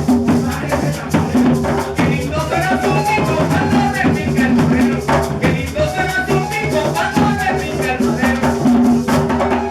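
Live gaita ensemble playing: maracas and drums keep a dense, even rhythm over steady bass notes, with a melody line gliding above.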